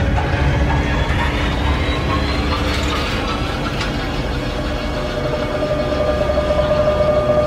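Elevator car speeding through its shaft: a loud, dense rumble and rattle with a whine rising in pitch, and a steady high tone joining about five seconds in.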